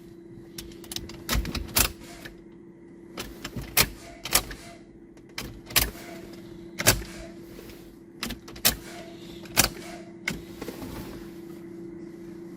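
Volvo with a no-crank, no-start fault: a steady electrical hum with about a dozen sharp clicks and knocks at uneven intervals, and no engine cranking.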